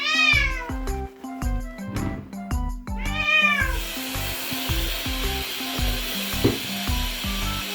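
Munchkin kitten meowing twice, one short call at the start and another about three seconds in, during a bath. A steady hiss of running water follows from about three and a half seconds on.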